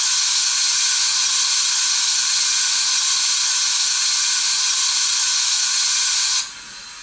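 Steam locomotive vacuum ejector sound effect played by a Zimo sound decoder through a 23 mm speaker in a Bachmann OO gauge SR H2 Atlantic model: a loud steady hiss that cuts off sharply near the end. It recreates the ejector blowing to make vacuum for the train brakes.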